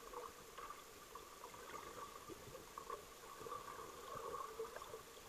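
Faint underwater ambience picked up by a camera in its housing: a steady low hum and hiss with soft crackles and gurgles scattered through it.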